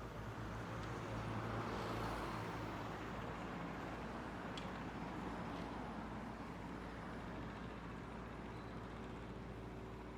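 A motor vehicle passes by, its noise swelling about two seconds in and then slowly fading, over a steady low engine hum.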